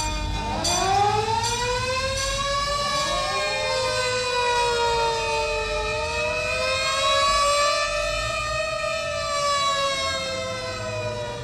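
Several fire-engine motor sirens winding up and wailing together at different pitches, their tones slowly rising and falling across one another. A warning bell strikes about once a second in the first couple of seconds.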